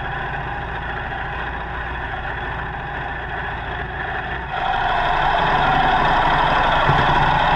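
Ducati Panigale superbike engine and exhaust running at a steady note, stepping up louder and brighter about four and a half seconds in.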